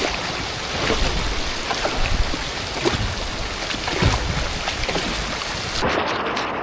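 Heavy rain hissing down with sea waves splashing and wind buffeting the microphone; the bright rain hiss cuts off suddenly near the end.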